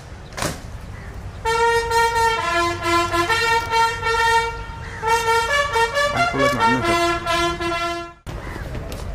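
A bugle sounding a salute call: a series of held notes stepping between a few pitches, which stops abruptly shortly before the end. Just before it come two sharp knocks as the honour guard's rifles are brought to present arms.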